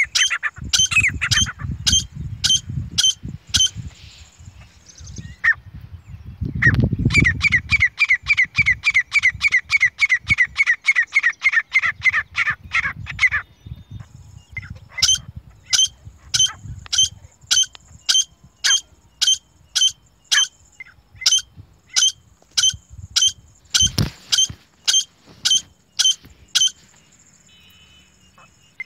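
Grey francolins calling: sharp, high, repeated calls about two a second, with a faster, quicker-paced run of calls in the middle. A low rumble lies underneath, with a single low thump near the end.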